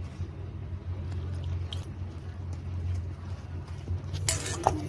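A hand mixing and rubbing moist flour in a steel bowl: soft crumbly rustling, then sharper scraping clicks against the bowl about four seconds in. A steady low hum runs underneath.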